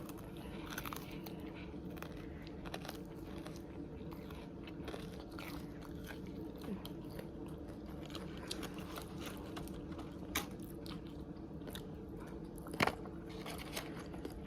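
Close-up eating sounds: chewing and biting into fried food, with scattered small crunches and clicks and two sharper clicks near the end, over a steady low hum.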